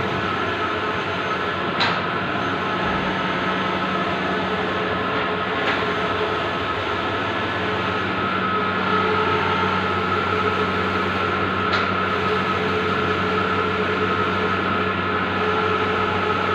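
Bluewin outdoor large-format digital printer running, a steady mechanical hum with a high whine, broken by a few sharp clicks.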